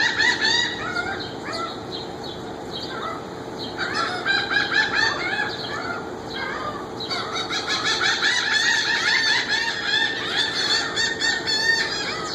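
A flock of birds calling noisily, many loud cackling calls overlapping and repeating rapidly. The calls come in bouts, with lulls about a second in and again past the six-second mark, and the last bout is the longest.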